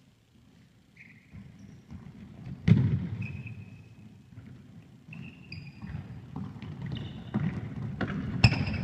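Indoor football in an echoing sports hall: a hard ball kick about three seconds in that rings on in the hall, trainers squeaking on the sports floor, and more kicks and thuds near the end.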